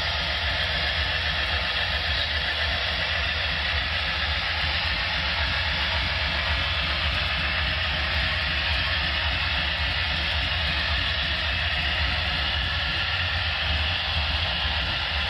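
HO-scale model train running: the sound decoder of a Broadway Limited Imports Union Pacific Centipede diesel playing steady engine sound through its small speaker, mixed with the freight cars rolling on the track.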